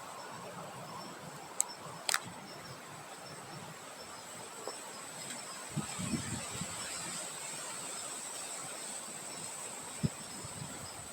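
Outdoor nature ambience: a steady wind hiss that swells a little midway, under a constant high insect drone and faint pulsing cricket chirps. A few sharp clicks and some low thumps break through, the thumps about six seconds in.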